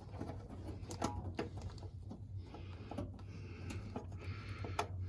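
Scattered light clicks and taps of screws being handled and fitted at the back of a washing machine, over a steady low hum.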